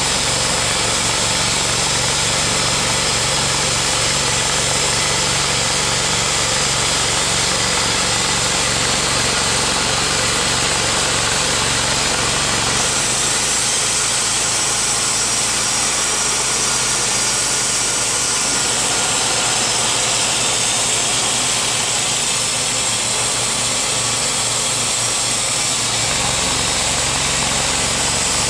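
Timberking B-20 portable bandsaw mill's engine and band blade sawing through a white oak log, running steadily under load. About halfway through the cut ends and the engine runs on lighter. Near the end the next cut begins and the heavier sawing sound returns.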